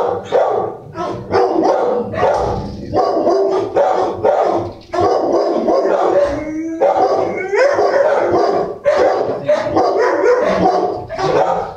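Dogs barking continuously in rapid, overlapping barks, with a rising howl-like yelp about seven seconds in.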